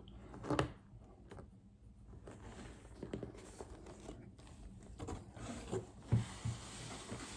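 Faint rustling and scraping of model kit boxes and packaging being handled, with a light knock about half a second in and two low knocks about six seconds in.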